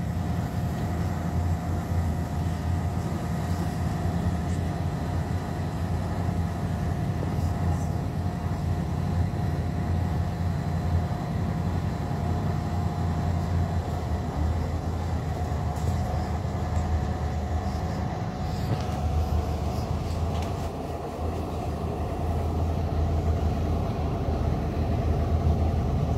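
Passenger boat's engines running, heard from on board: a steady low drone with a faint steady whine above it.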